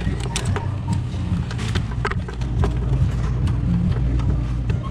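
Steady low machine hum with many short clicks and knocks of parts being handled, as connectors and a controller are worked loose.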